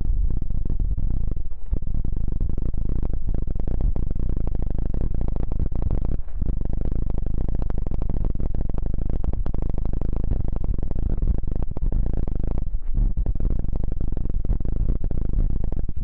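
Rapid, close rubbing and scratching directly on a silicone binaural microphone ear, heard as a loud, deep rumble of fine strokes, with brief pauses about 2, 6 and 13 seconds in.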